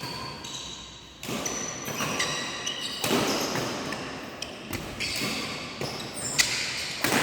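Badminton play on an indoor court: several sharp racket strikes on the shuttlecock and short high squeaks of sports shoes on the court floor, over a steady hall din.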